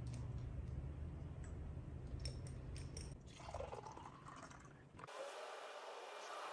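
Water poured from a glass pitcher into a small glass jar, a faint trickling fill, after a few light clicks of glass. A faint low hum sits under the first part.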